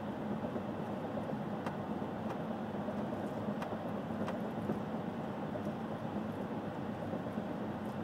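Steady road and engine noise of a car driving on a highway, heard from inside the car, with a low hum and a few faint ticks.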